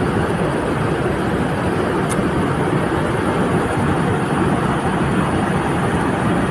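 Steady rumble of vehicle traffic, trucks and buses running and moving, with a faint short tick about two seconds in.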